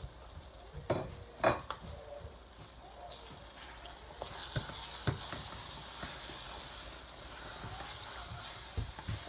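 A chicken and chickpea curry frying and sizzling in a pot as it is stirred with a spoon, with several knocks of the spoon against the pot. The sizzle grows louder about four seconds in.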